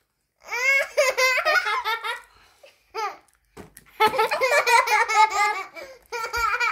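Young girls laughing hard in several bursts with short pauses, the longest starting about four seconds in.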